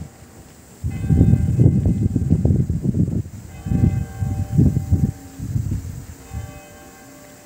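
Tower clock bell striking the hour: three strokes about three seconds apart, each ringing on and fading. Loud low gusts of wind buffet the microphone under the first strokes.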